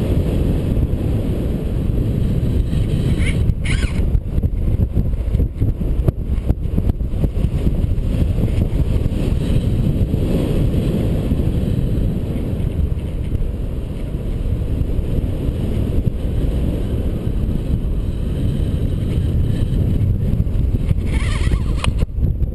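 Steady low wind noise from airflow over a helmet-mounted camera's microphone in paraglider flight, with a few faint clicks a few seconds in.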